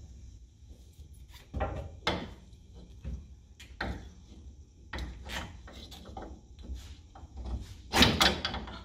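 Steel rear coil spring of a Jeep Gladiator being worked by hand into its rubber isolator and spring seat, scraping and knocking in short irregular bursts, with a louder clatter near the end.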